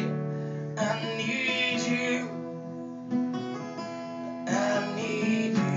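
Acoustic guitar chords strummed and left to ring, with fresh strums about a second in and again near the end.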